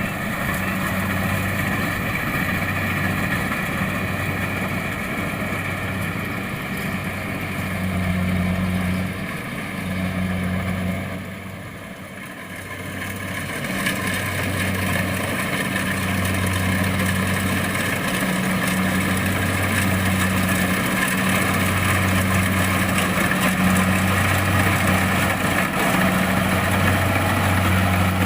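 Kubota DC-70 Plus combine harvester running under load, its diesel engine humming steadily with a low note that swells and fades every couple of seconds. The sound drops briefly near the middle, then comes back louder.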